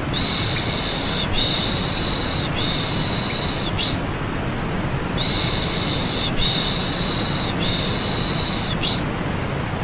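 Steady white noise with rhythmic "shh" shushing over it, the lulling sound used to settle a baby to sleep. There are three shushes of about a second each, a short pause, then three more.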